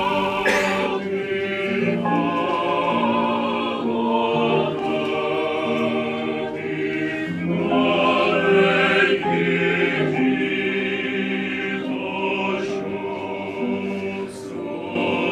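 A choir singing slowly, several voices holding long notes together and moving from one chord to the next about every second.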